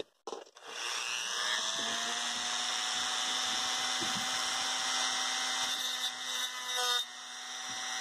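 Rotary tool with a small abrasive cut-off disc spinning up about half a second in, then running steadily while it grinds a grip notch into a tiny sheet-steel folding-knife blade. The level dips briefly near the end, then picks up again.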